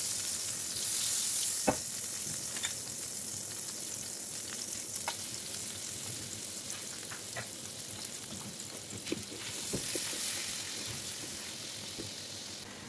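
Butter sizzling in a nonstick frying pan as chopped garlic fries in it, with the hiss swelling near the start and again about ten seconds in. Scattered clicks and scrapes from a silicone spatula stirring the pan, the sharpest about two seconds in.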